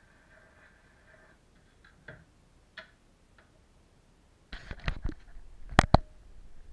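Steel needle and sound-box of an HMV C102B portable gramophone riding the run-out groove of a 78 rpm record, a faint hiss with a swish repeating less than a second apart, stopping about a second in as the tone arm is lifted off. Then a few light clicks as the arm is set on its rest, and near the end a run of loud knocks and sharp clicks from handling the machine.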